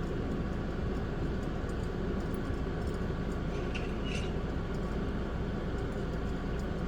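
Steady low background hum, with two faint clicks of plastic Lego pieces being handled about four seconds in.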